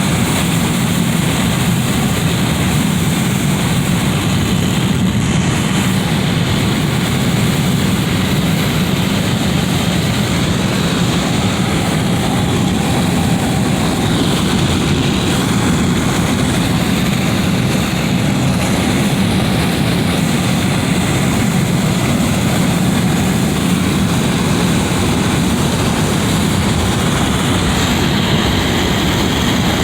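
Wind coming through a window: a steady, unbroken rushing noise with a strong low rumble, the same throughout.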